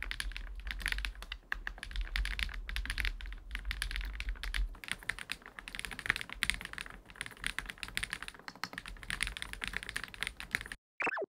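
Fast typing on a GLITTER65 R2 gasket-mounted mechanical keyboard: a dense, continuous run of key clacks that stops abruptly about ten and a half seconds in, followed by a brief swish near the end.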